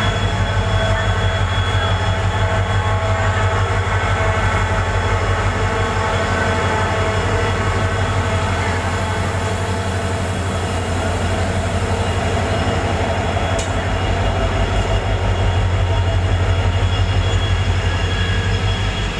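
Long train passing slowly: a steady, loud rumble of wheels on the rails, with thin steady tones above it.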